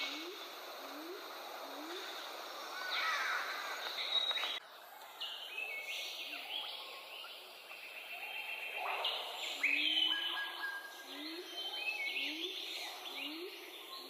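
Rainforest ambience full of overlapping bird calls. A low, short rising note repeats about twice a second, drops out abruptly about four and a half seconds in, and returns near the end.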